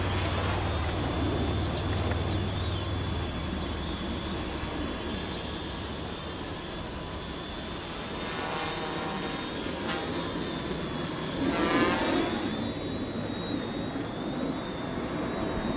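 Quadcopter's four brushless outrunner motors (Flyduino 2208, 1100KV) and 8x4.5 carbon-mix propellers buzzing in flight, the pitch wavering up and down with throttle about twelve seconds in.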